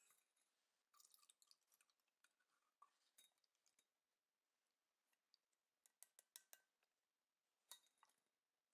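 Faint clinks and taps of a tin can against a stainless-steel mesh strainer as canned clams are tipped and shaken out, with a small cluster of taps about six seconds in.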